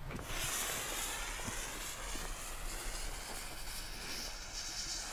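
Lit fuse of a Nico Donnerhall black-powder salute rocket burning with a steady hiss, starting just after the beginning.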